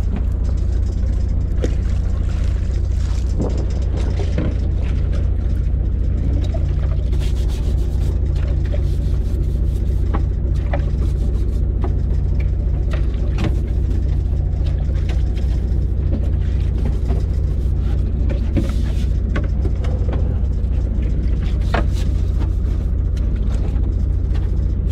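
Fishing boat's engine running steadily, a constant low hum, with scattered faint clicks and knocks over it.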